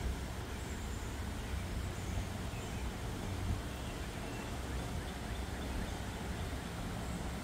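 Steady rushing of floodwater in a swollen, fast-flowing river.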